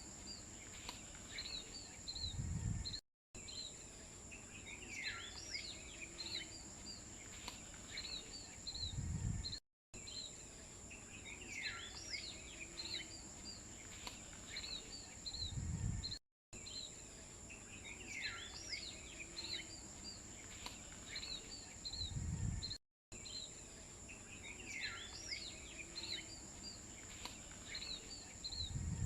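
Birds chirping over a steady high insect drone. The same few seconds of ambience repeat about every six and a half seconds, each ending in a low rumble and a brief cut to silence, like a looped nature-sound track.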